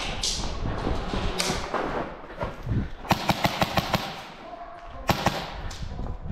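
Airsoft rifle firing a rapid full-auto burst of about nine shots, a little under a second long, about three seconds in, then one or two more quick shots about two seconds later.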